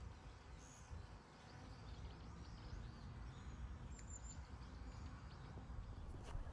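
Faint outdoor ambience: a low rumble under a light hiss, with a few distant bird chirps, the clearest about four seconds in.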